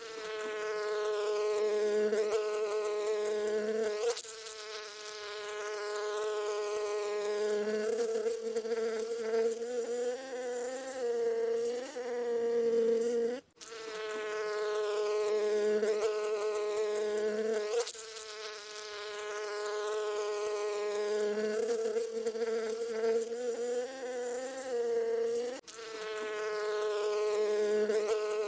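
A single bee buzzing in flight, a steady wing hum that wavers in pitch and swells and fades as it moves about. The buzz cuts out for an instant about halfway through and again near the end.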